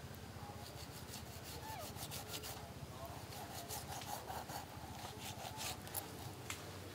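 A small knife slitting open a snake's belly skin and scales, in a run of short scraping, rasping strokes.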